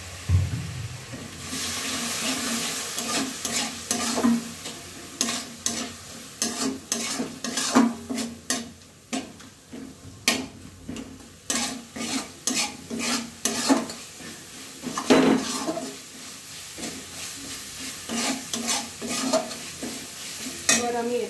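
Onion and spice masala sizzling in an aluminium kadai while a steel spatula stirs it, scraping and knocking against the pan in quick, irregular strokes.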